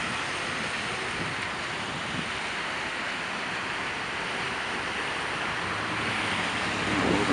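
Steady city street traffic noise, an even rush of engines and tyres; a vehicle grows louder near the end.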